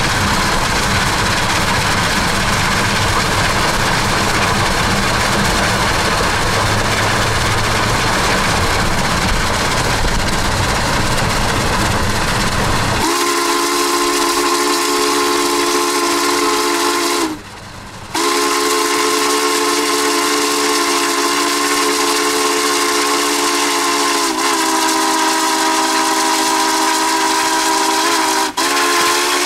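Union Pacific 844's steam whistle blowing long blasts, several notes sounding together as a chord. It starts about halfway through, breaks off briefly, then sounds again. Before it there is a steady rumble of running noise, heard from a car pacing the train.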